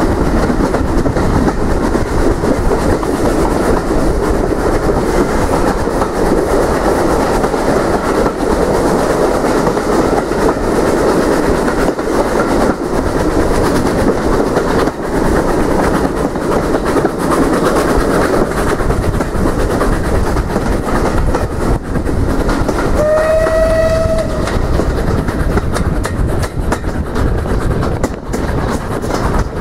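A train running along the track with a steady, loud rumble of wheels on rails. About 23 seconds in, a single short note sounds for about a second, typical of a train horn.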